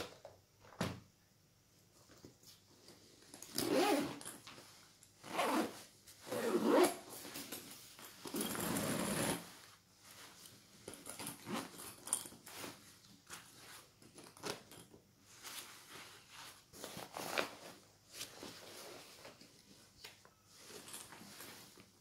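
Victorinox Altmont laptop backpack being handled: zippers running and fabric rustling in a string of short bursts, the longest zip lasting over a second about eight seconds in, then smaller rustles and clicks of straps and pulls.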